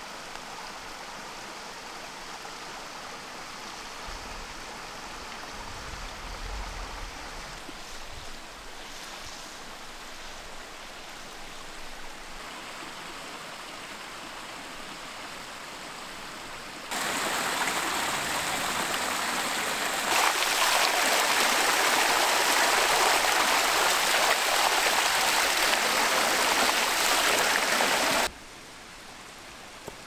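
Mountain stream running and splashing over rocks at a small waterfall, a steady rush of water. A little over halfway through it becomes much louder, then drops back suddenly near the end.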